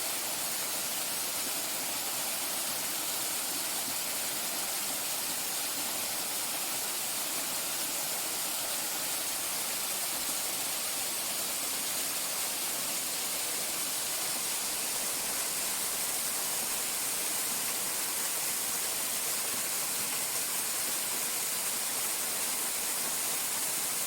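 Waterfall: falling water making a steady, even rushing hiss with no breaks.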